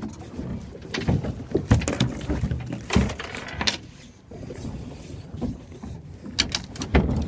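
Irregular knocks and thumps on a boat deck as a freshly landed weakfish is handled and unhooked, over a low rumbling background noise.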